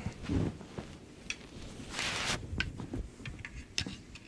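Plastic parts of an RC toy truck being handled during disassembly: scattered light clicks and knocks, a low thump near the start and a short scraping rustle about two seconds in.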